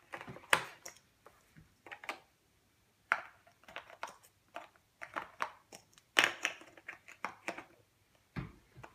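Clips clicking and tapping against the plastic tray of an art-set case as they are handled and pushed back into their slot: a run of separate sharp clicks and knocks with short pauses, busiest about six seconds in.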